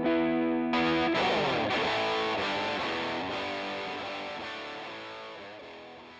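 Warmoth '72 Telecaster Deluxe-style partcaster electric guitar played with distortion, miked at the amp: a held chord, then a final chord struck about a second in and left ringing, fading slowly away.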